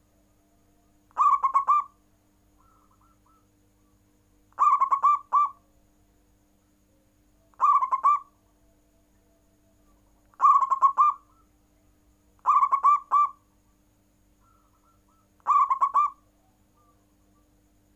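Zebra dove (perkutut) cooing: six short phrases of a few quick rolling notes each, spaced two to three seconds apart, with fainter soft coos between them.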